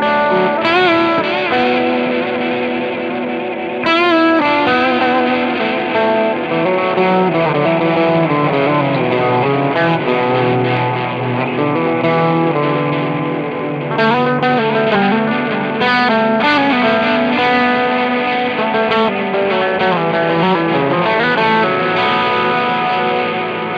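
Overdriven electric guitar played through a Strymon Volante magnetic echo pedal, its repeats piling up into a dense wash of sustained notes. Phrases with wavering, bending pitch come in about four seconds in and again about fourteen seconds in.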